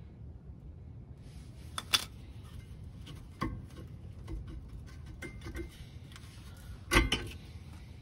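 Rear brake pads' steel backing plates clicking and clinking against the caliper bracket as they are worked out by hand, with a few sharp metal knocks, the loudest about two seconds in and about seven seconds in.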